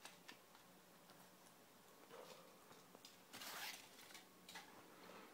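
Faint handling sounds of a Kinder Surprise egg's crumpled foil wrapper and plastic toy capsule: scattered light clicks and soft rustling, with one louder crinkly rustle about three and a half seconds in.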